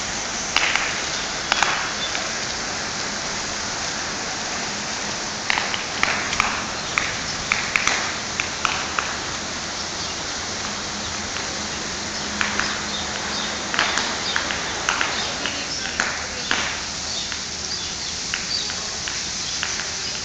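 High-pressure water jet from a fire hydrant hose, a steady hiss of spray with water falling through tree leaves like heavy rain, dotted with scattered sharp spatters.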